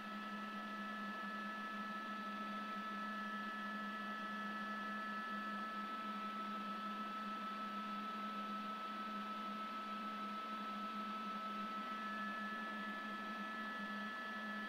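Steady drone of a news helicopter heard through its cabin microphone: an unchanging low hum with several steady high tones over a hiss.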